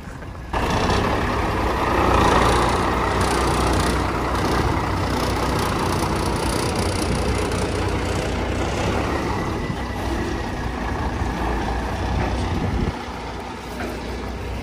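Semi truck's diesel engine running steadily, a loud low rumble that starts suddenly about half a second in and eases slightly near the end.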